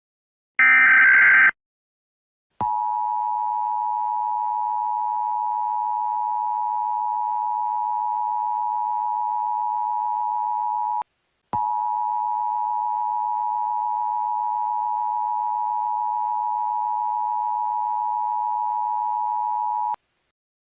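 The last of the three EAS SAME header data bursts, a short buzzy electronic screech. After a second's pause comes the EAS two-tone attention signal (853 and 960 Hz), a steady loud tone. It breaks off briefly about halfway through, resumes and then cuts off.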